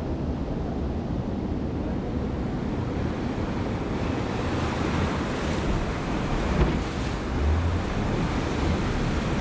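Breaking surf and foaming water rushing around a small boat's hull, with wind buffeting the microphone. One brief louder hit comes about two-thirds of the way through.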